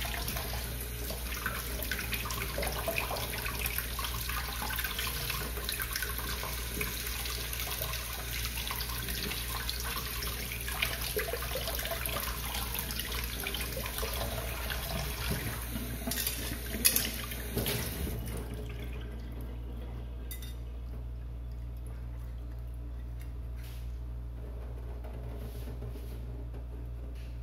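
Kitchen tap running into a stainless steel sink, water splashing over a skinned filefish being rinsed by hand over a plate. A few sharp knocks come shortly before the water is shut off about two-thirds of the way through, leaving only faint handling sounds.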